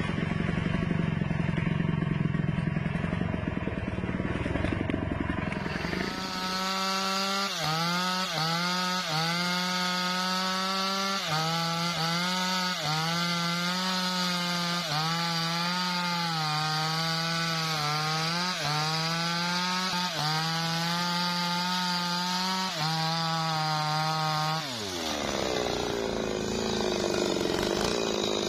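Two-stroke chainsaw cutting into a tree stump. A rougher, lower engine note gives way about six seconds in to a high, steady full-throttle pitch that dips and recovers every second or so as the chain bites into the wood. Near the end the throttle is released and the pitch falls away.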